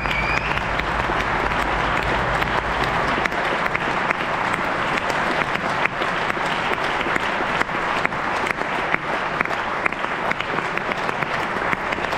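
Theatre audience applauding steadily: a dense, even patter of many hands clapping.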